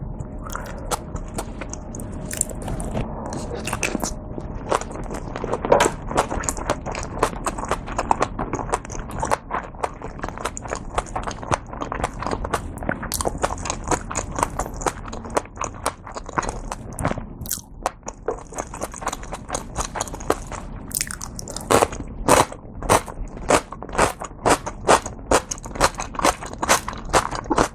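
Close-miked chewing and biting of mouthfuls of Korean dumplings, a steady run of short wet mouth clicks. In the last several seconds it settles into a loud, regular chewing rhythm of about two chews a second.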